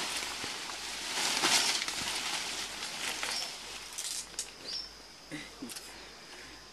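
Leaves and stems rustling and swishing as mountain gorillas push through the undergrowth at close range, in swells that are heaviest in the first few seconds and die down toward the end, with a few short high chirps in the background.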